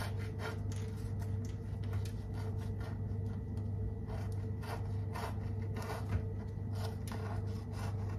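Kitchen knife sawing back and forth through a soft psyllium bun with a crisp crust, a run of short rasping strokes about two a second. A steady low hum runs underneath.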